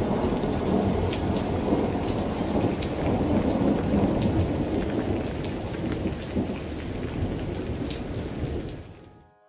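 Heavy rain with rumbling thunder, a dense patter of drops over a low rumble, fading out near the end.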